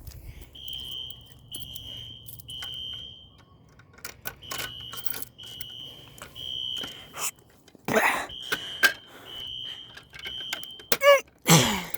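Wheelock Exceeder fire alarm horn sounding the temporal-three evacuation pattern: three short high-pitched blasts, a pause, repeated three times. Clicks and knocks of handling are heard between the blasts, with two louder rustling bursts, one about two-thirds of the way in and one near the end.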